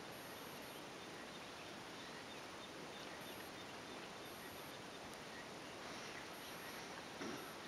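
Faint outdoor ambience: a steady hiss with short, high-pitched chirps recurring every second or two. There is a brief soft rustle about seven seconds in.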